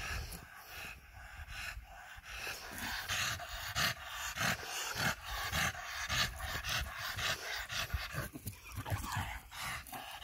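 Pocket bully dog panting hard with its mouth open, in quick, even breaths about three a second.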